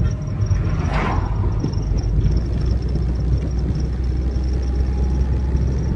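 Car driving along a road, heard from inside the cabin: a steady low engine and road rumble that grows stronger about two seconds in. An oncoming car passes about a second in with a brief whoosh.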